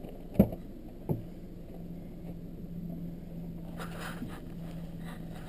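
Two sharp knocks near the start, the first the loudest, then a steady low hum, with footsteps crunching in snow about four seconds in.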